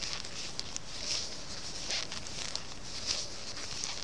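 Knitting by hand on circular needles: soft rustles of wool yarn drawn through purl stitches, about one a second, with faint clicks of the needle tips.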